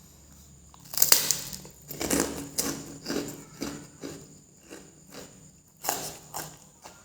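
Close-up eating crunch of krupuk crackers: a sharp bite about a second in, then chewing crunches about twice a second that fade, and another sharp bite near the end.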